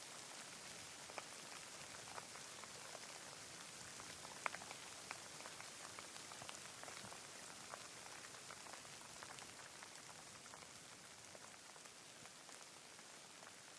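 Faint, steady rain: an even hiss with scattered individual drops ticking, one of them louder about four and a half seconds in.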